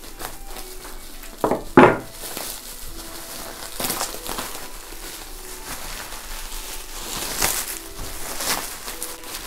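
Plastic bubble wrap crinkling and rustling as it is pulled open by hand. A louder short rasp comes about one and a half to two seconds in, as the taped wrap is slit with a knife.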